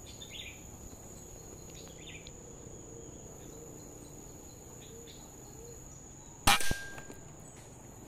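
A single shot from a PCP air rifle about six and a half seconds in: a sharp crack with a brief ring. A steady high insect drone runs underneath.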